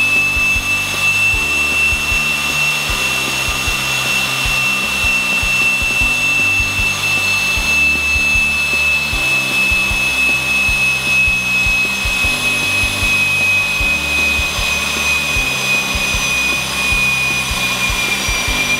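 Pratt & Whitney PT6A-42A turboprop being motored on its starter for a compressor wash, giving a steady high-pitched whine as the compressor spins with wash solution flowing in. Near the end the whine starts to fall in pitch as the starter is shut off and the engine winds down.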